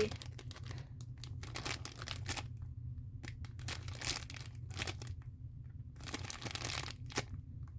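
Thin plastic packaging crinkling as a foam squishy toy is handled and squeezed, in uneven spells with a few brief pauses.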